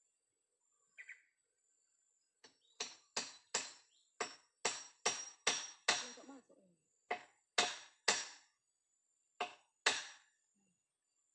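Hammer driving nails into the wooden poles of a hut's roof-ridge frame: about a dozen sharp, ringing blows in short runs of two to four, with pauses between the runs.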